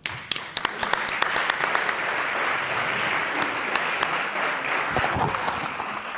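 Audience applauding: dense clapping that starts suddenly and thins out near the end.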